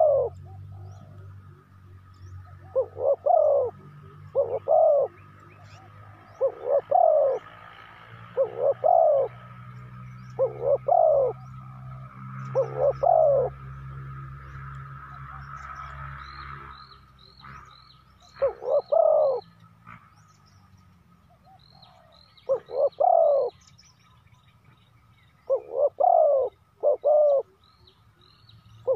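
Spotted dove cooing: loud, arched coo notes, singly or in quick pairs, repeated about every two seconds with a pause in the middle. A steady faint high hum sits behind it, and a smaller bird gives brief high chirps in the second half.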